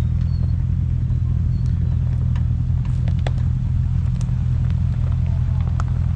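Off-road Jeep's engine running at low speed, a steady low drone, with scattered light clicks and knocks over it.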